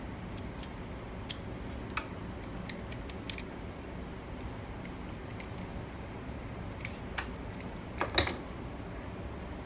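Scattered small plastic clicks as the LAN cable's wires are pushed into an RJ45 connector. About eight seconds in comes a louder cluster of clicks, the crimping tool closing on the connector.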